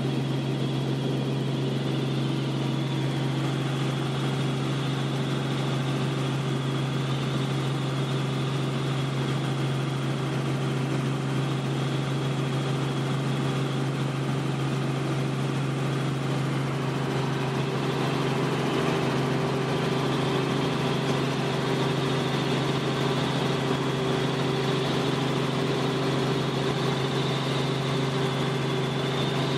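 Steady drone of a light helicopter's engine and rotors heard inside the cabin in cruise flight: a strong, even low hum with a thin high whine above it.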